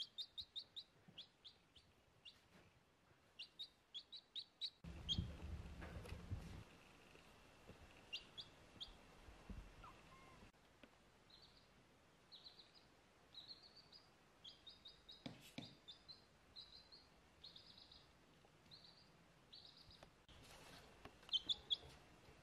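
Baby chick peeping: faint runs of short, high chirps, with a brief low rustle about five seconds in.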